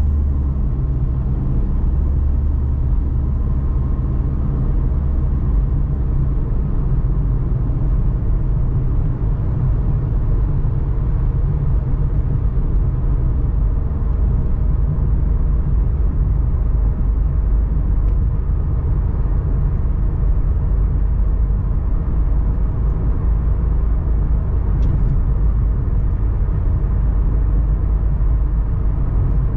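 A car driving along the road: a steady, low rumble of engine and tyre noise with no changes.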